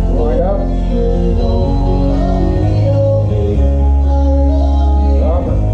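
Music with singing and guitar, playing on a radio.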